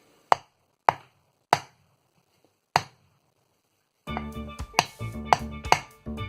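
Four hammer blows on a block of 2x4, driving the seal into a Powerglide transmission's tail shaft housing. After about four seconds, background music with a percussive beat comes in.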